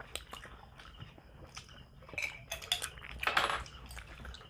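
Eating sounds at a table: scattered light clicks and clinks, with one short, louder noisy crunch a little past three seconds in.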